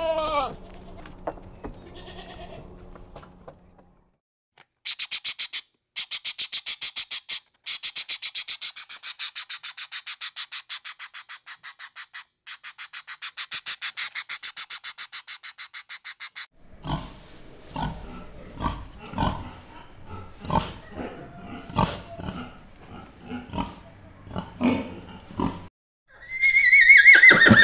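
A goat bleats once at the start. A rapid, high-pitched chirring trill follows in bursts for about ten seconds, then irregular knocks and thumps, and near the end a horse whinnies loudly.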